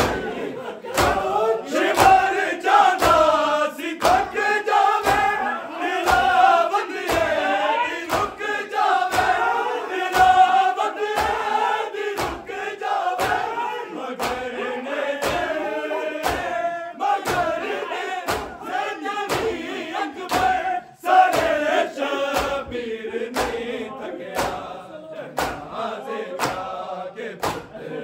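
Men chanting a Punjabi noha, a mourning lament, together in unison while beating their chests in matam. The hand-on-chest slaps land in a steady rhythm of about three beats every two seconds under the chanting.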